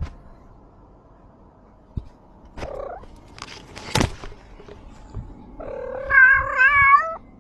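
Cat meowing: a faint short call about two and a half seconds in, then one long, loud, wavering meow near the end. There is a sharp knock about four seconds in.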